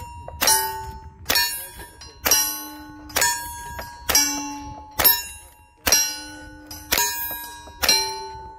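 Rifle firing a steady string of nine shots at steel plate targets, about one shot a second. Each shot is followed by the ring of the steel plate it hits, pitched differently from plate to plate.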